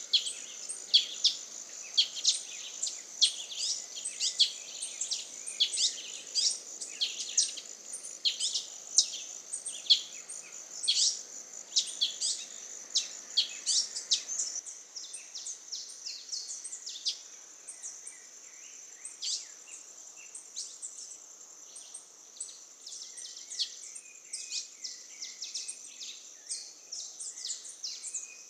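Young male Brazilian tanager giving sharp, short call notes, each a quick downward sweep, about two a second and thinning out after about halfway, over a steady high-pitched insect buzz.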